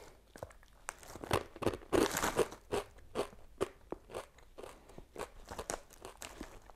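Biting into and chewing Bisli, a crunchy fried wheat snack. A dense run of loud crunches comes about one to two and a half seconds in, followed by softer chewing crunches at about three a second.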